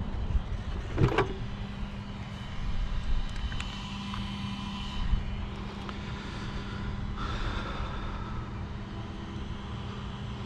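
Low, steady rumble of road traffic, with a sharp click about a second in.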